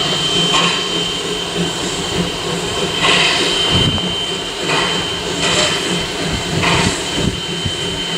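Steam locomotive Mason County Logging No. 7 moving slowly past, with slow, irregular exhaust chuffs and hiss over a low rumble. A thin steady high tone sounds throughout.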